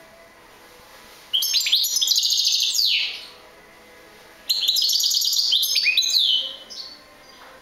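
European goldfinch singing: two phrases of fast, high twittering song about two seconds each, the first starting just over a second in and the second around the middle, with a pause between them.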